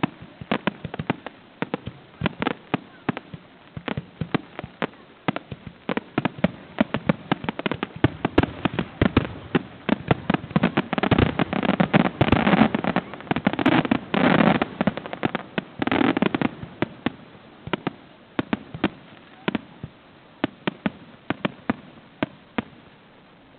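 Aerial fireworks display: a steady run of sharp bangs that crowds into a dense, crackling barrage in the middle and thins out again toward the end.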